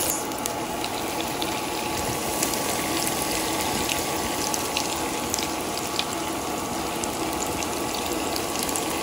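Breadcrumb-coated bread rolls deep-frying in hot oil: a steady sizzle with many small crackles and pops throughout.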